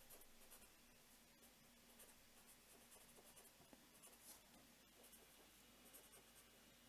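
Felt-tip pen writing on paper: faint, short scratching strokes as words are written out.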